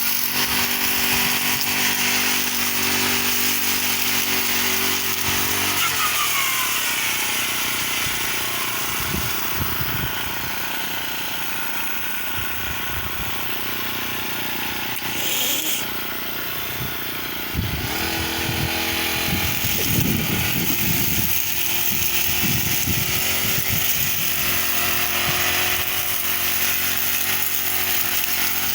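Petrol brush cutter running while cutting grass. Its engine note is steady at first, changes about six seconds in, and shifts again later as the load on the cutting head varies.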